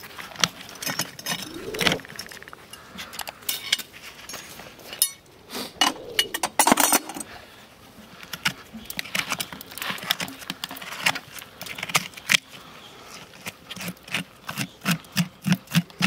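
Steel horseshoe being levered off a hoof with farrier's shoe pullers: repeated metal clicks and clinks, with a couple of drawn-out creaks as the nails are worked out of the hoof wall, and a quicker run of knocks near the end.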